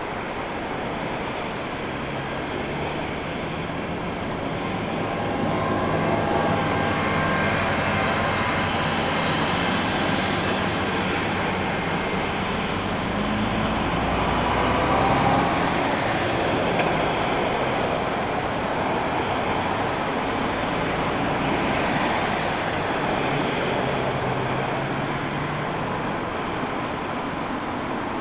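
Twin turbofan engines of a Flybe Embraer regional jet rolling along the runway: a steady jet rush with whining engine tones that slide in pitch, growing louder to a peak about halfway through and then easing off.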